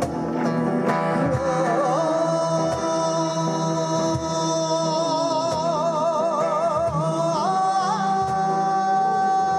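Music: a voice holding long, wavering notes, rising to a higher held note about three quarters of the way through, over plucked guitar-like strings.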